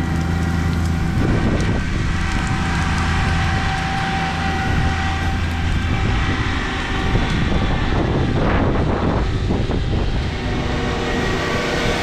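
Compact tractor's diesel engine running at a steady speed. Between about 8 and 10 seconds in, a louder rough noise rises over it.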